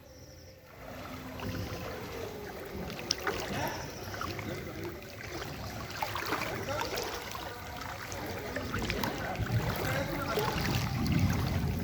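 Floodwater rushing, a steady noisy wash that starts faint, grows louder, and gains a low rumble near the end.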